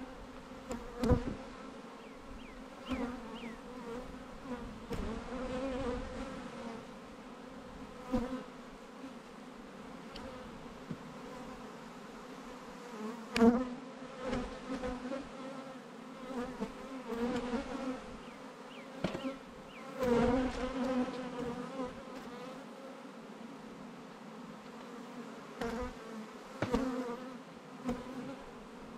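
Honey bees from a strong, stirred-up colony buzzing in large numbers around an opened hive, a steady hum. Several sharp knocks and bumps stand out above it, about 1, 8, 13, 20 and 27 seconds in.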